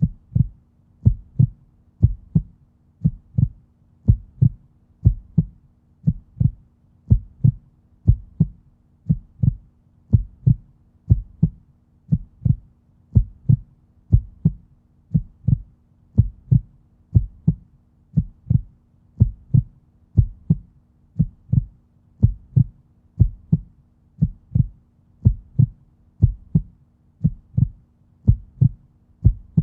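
Human heartbeat: a steady lub-dub double thud, deep and low, repeating about once a second at an even rate.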